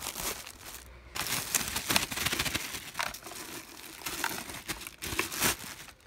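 Plastic packaging crinkling and rustling in bursts, with a few light knocks, as the motor base of a new blender is unwrapped and handled.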